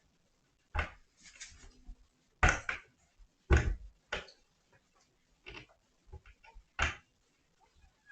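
Kittens playing: a handful of sharp knocks and bumps at irregular intervals, the loudest about two and a half and three and a half seconds in, with fainter clicks and rustling between.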